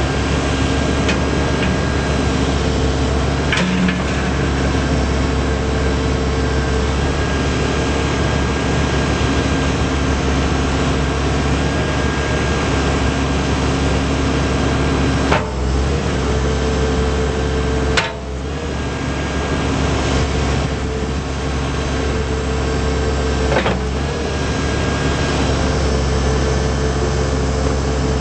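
Case 580M backhoe loader's diesel engine running steadily, with a few sharp knocks or clunks from the machine along the way.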